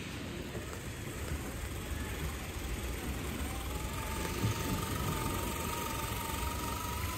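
Whine of an RC scale crawler's electric motor and gears as the truck creeps across sand, starting about three seconds in and rising slightly in pitch, over a steady low background rumble.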